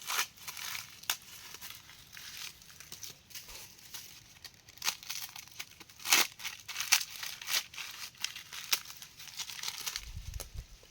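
Dry plant material crackling and tearing by hand in irregular sharp snaps, several a second.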